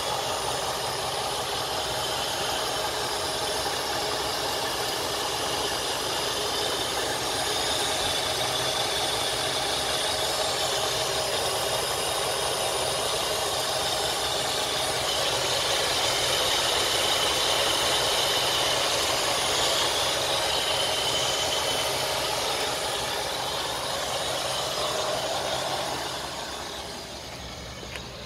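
Chevrolet 409 cubic-inch V8 (340 hp version) idling steadily, heard up close in the engine bay by the alternator and fan belts. It grows quieter near the end.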